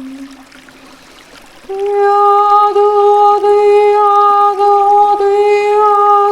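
A woman's voice singing one long, wordless held note, coming in about two seconds in after a brief lull, as spontaneous chant-like toning in a Reiki healing session.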